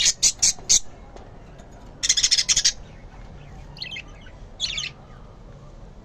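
Budgerigars chirping in short, high bursts: a quick run of four or five chirps at the start, a denser chattering burst about two seconds in, and two brief calls later on.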